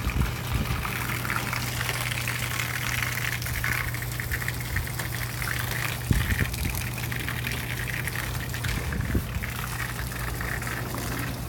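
Water from a garden hose overflowing the edge of a flat roof and pouring down in a steady gushing splash. A low steady hum runs under it, and a few soft knocks come near the start and about six and nine seconds in.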